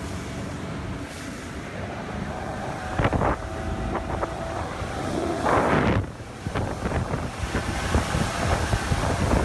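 Bayliner motorboat running underway, its engine a steady low drone under heavy wind buffeting on the microphone. There are two louder surges of rushing noise, about three and six seconds in.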